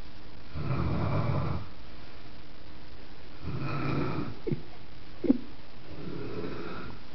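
A grandmother snoring in her sleep: three long, rough snores, one every few seconds. Between the second and third comes a short sharp click.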